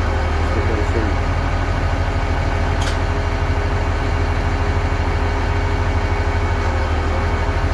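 Heavy diesel engine idling steadily at about 800 rpm, with a short click about three seconds in. The engine is running normally, its low fuel-pressure fault cleared.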